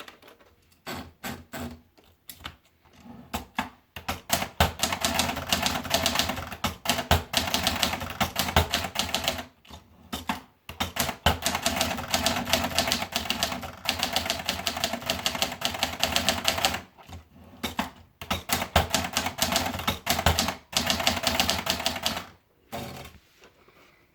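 Adler Tippa manual portable typewriter being typed on: a few separate key strikes at first, then fast runs of clacking keystrokes broken by a few short pauses, thinning to a last few strikes near the end.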